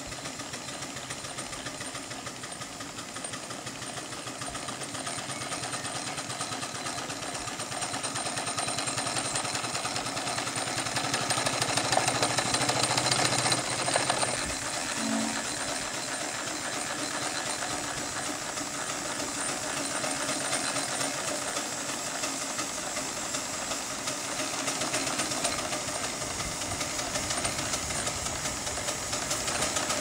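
Live-steam scale model Fowler Super BA ploughing engine running, with a fast, even clatter of exhaust beats and motion. It grows louder over the first dozen seconds, then drops back when the shot changes.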